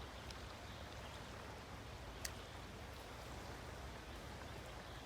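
Faint steady rush of flowing stream water, with one sharp click a little over two seconds in.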